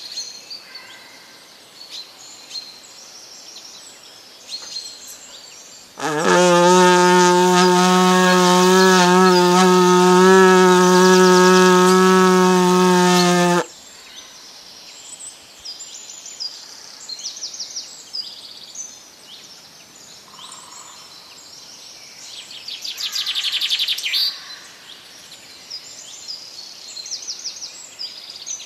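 Rowan-bark horn blown in one long, loud, low held note of about seven seconds with a slight waver, starting about six seconds in and breaking off abruptly. Birds chirp and sing before and after it.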